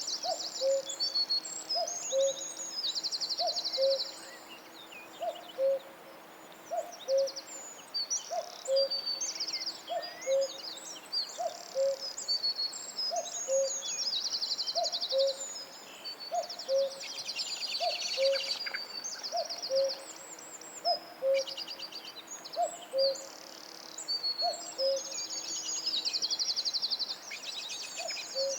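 Forest bird chorus: a low, soft two-note hoot repeats about once a second over many high, buzzy trills and chirps.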